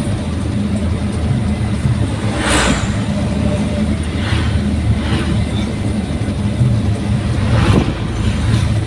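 Daihatsu Gran Max pickup under way, its engine and aftermarket exhaust giving a steady low drone. Several brief whooshes pass over it, the loudest about two and a half seconds in and another near the end.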